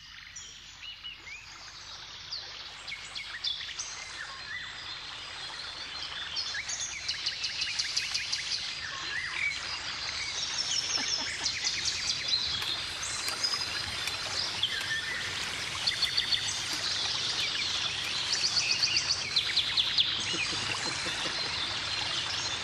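Several songbirds singing and chirping, with rapid trills and short calls overlapping over a faint steady background hiss. The birdsong grows louder over the first several seconds.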